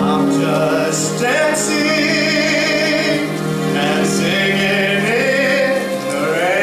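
Stage-musical music: an orchestral accompaniment with singing, the melody held in long wavering notes over sustained low chords, sweeping upward near the end.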